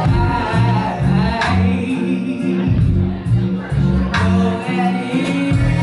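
Live music through a club PA: a vocalist singing into a microphone over a backing track, with a deep bass line moving in short steps and a sharp drum hit now and then.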